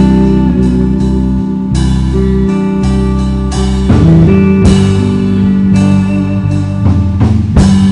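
Instrumental intro of a country song: guitars with a drum kit keeping the beat.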